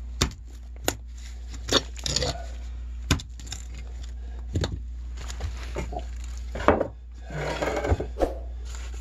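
Straight-claw hammer knocking against the concrete blocks of a crawlspace pier as it is taken down: separate sharp strikes and clinks about a second apart, then a longer scraping, grinding rattle of concrete near the end.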